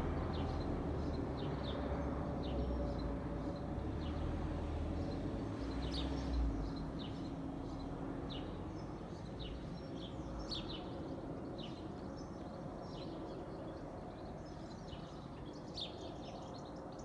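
Gulfstream business jet's twin turbofan engines passing overhead: a low, steady rumble that slowly fades as the jet moves away. Small birds chirp repeatedly over it.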